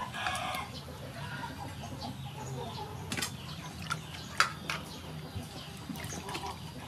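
Water splashing and sloshing in an aluminium basin as raw chicken drumsticks are rubbed and washed by hand, with a couple of sharper splashes about three and four and a half seconds in.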